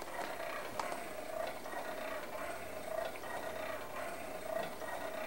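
Wind-up Easy-Entry baby swing running, its drive mechanism clicking and whirring steadily as the seat rocks.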